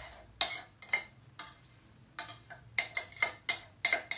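A metal spoon clinking and scraping against the inside of a metal saucepan while gathering up thick raspberry filling: sharp ringing taps, a few at first, a short pause, then quicker taps in the second half.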